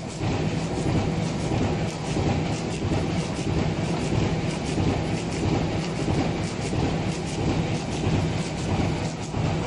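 Corrugated-board flexo printer-slotter die-cutter running at production speed: a steady low hum under a continuous mechanical clatter as board sheets are fed through the rollers and carried out on the stacker conveyor.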